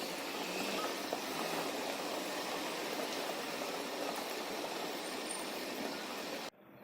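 Steady rushing background noise that cuts off abruptly about six and a half seconds in, leaving a much quieter hiss.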